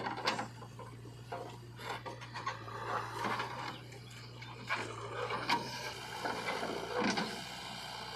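JCB 3DX backhoe loader working soil, with a steady low engine hum that fades near the end. Irregular scraping and several sharp knocks, the loudest about five and a half and seven seconds in, come from the bucket scraping and dumping earth.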